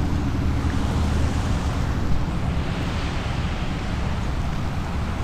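Wind buffeting the microphone: a steady, uneven low rumble with a faint rushing hiss over it.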